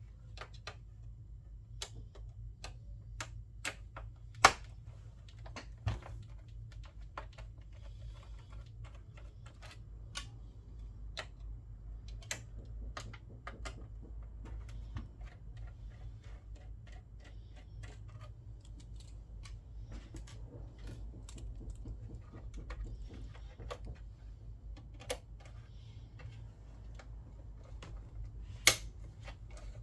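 Irregular small clicks and taps of a screwdriver, screws and metal and plastic parts as a PlayStation 3 console is taken apart, with two sharper clicks, one about four seconds in and one near the end, over a steady low hum.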